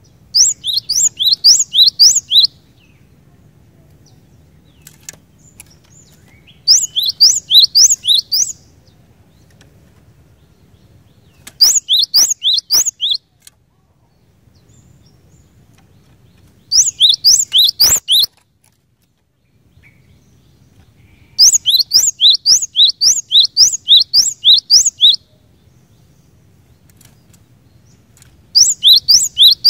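Cinereous tit (glatik batu) singing in repeated runs of quick, sharp notes, each note dropping in pitch. There are six runs of about one and a half to four seconds each, separated by pauses of a few seconds.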